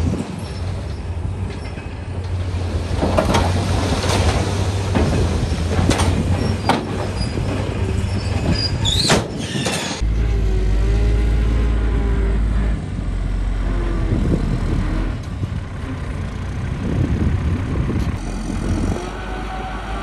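Heavy diesel earth-moving machinery running under load, with scattered metal clanks and a brief high squeal about nine seconds in. The low engine drone changes abruptly about halfway through.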